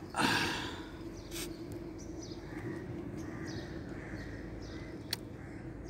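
Outdoor background: a steady low hiss with faint bird chirps, a brief rush of noise at the start and a sharp click about five seconds in.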